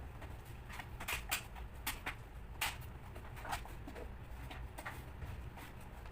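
Irregular small clicks and light scrapes of hands handling laptop parts and tools during a repair, over a low steady hum.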